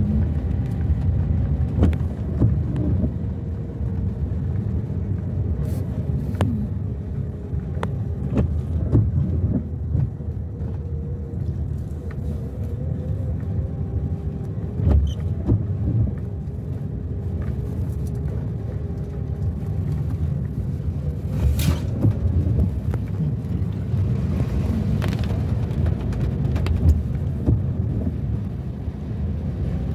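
Car driving, heard from inside the cabin: a steady low rumble of engine and tyres on the road, with occasional brief knocks.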